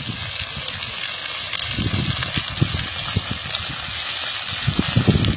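Grain field fire burning through dry standing wheat with a steady rush and dense crackling, with low buffeting on the microphone.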